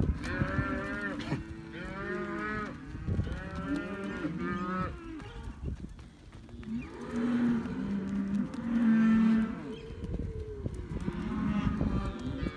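Shorthorn cows and calves mooing repeatedly, their calls overlapping one another, with a brief lull about six seconds in.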